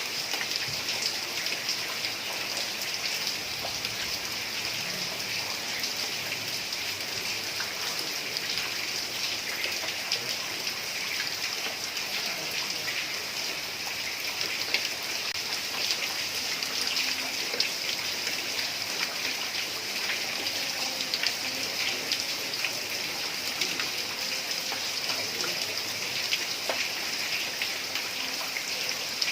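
Heavy rain falling steadily on a tiled roof, a dense patter of drops ticking over an even hiss.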